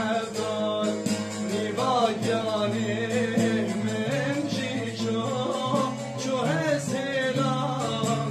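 Man singing a melismatic folk melody while accompanying himself on a long-necked saz (bağlama), strumming continuously over a ringing drone.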